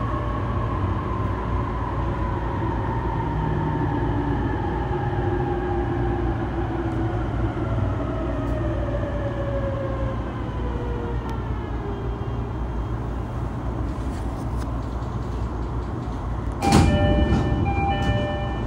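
Inside an E233-3000 series motor car, the Hitachi IGBT-VVVF inverter and MT75 traction motors whine in a falling pitch over the rumble of the train as it slows for a station. About 17 seconds in the doors open with a sudden loud burst, and the door chime sounds in a repeating pattern.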